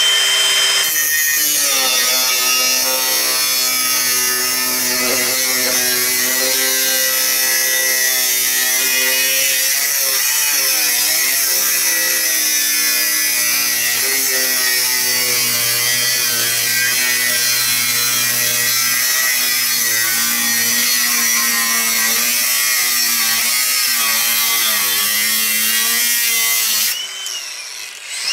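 AEG 18V Fusion 5-inch brushless cordless angle grinder cutting through sheet steel with a thin cut-off disc: a steady loud grinding hiss, the motor's whine sagging and wavering as it is loaded. Near the end the disc comes out of the cut and spins free with a steady high whine.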